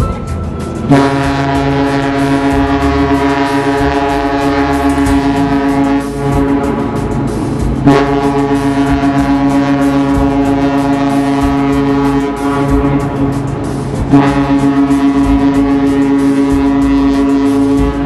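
A cruise ship's horn sounds three long blasts, each a deep, rich tone lasting about four to five seconds, as one ship passes another.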